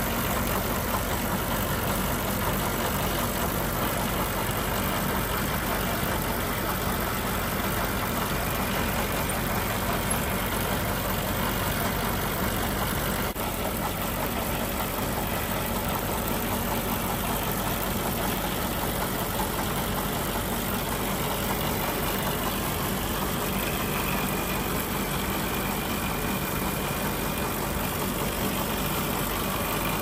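An engine idling steadily, with one faint click about thirteen seconds in.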